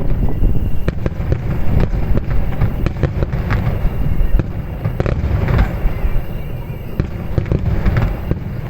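Fireworks finale barrage: shells bursting one after another, a continuous deep rumble with many sharp cracks and pops all through.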